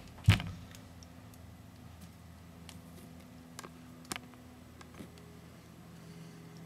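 A sharp, loud click just after the start, then a few faint irregular ticks over a steady low hum.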